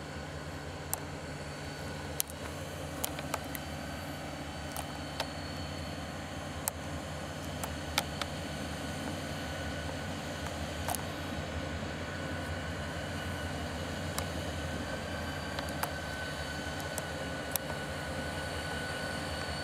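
Two EMD GP40 diesel-electric locomotives, each with a turbocharged V16 engine, running coupled together at low speed, a steady low engine drone with a steady high whine over it. Scattered sharp clicks break through it now and then.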